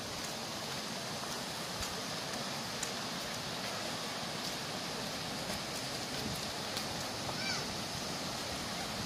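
Steady rush of a stream running over rocks, an even hiss.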